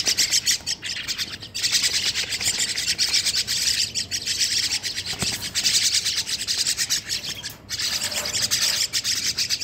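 A cage of young common myna chicks giving a dense chorus of overlapping begging calls, many birds at once and without a break.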